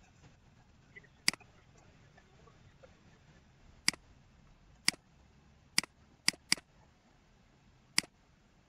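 Computer mouse button clicking seven times at uneven intervals, each a single sharp click, with two coming close together after about six seconds.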